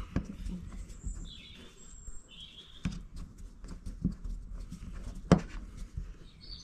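Hand screwdriver turning a screw into the bike rack's mounting bracket: scattered light clicks and scrapes, with one sharper click about five seconds in.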